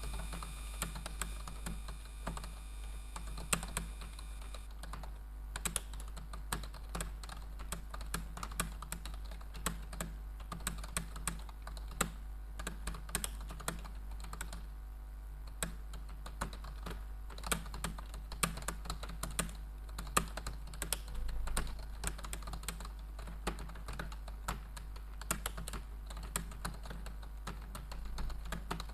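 Computer keyboard keys clicking in fast, continuous typing during a typing-speed test, with a steady low hum underneath.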